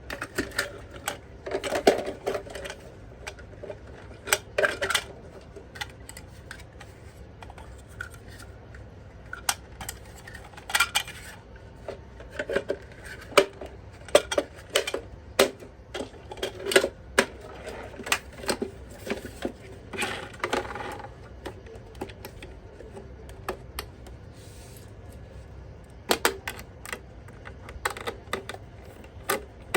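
Irregular clicks, taps and short rustles of plastic toy parts and packaging being handled and unboxed.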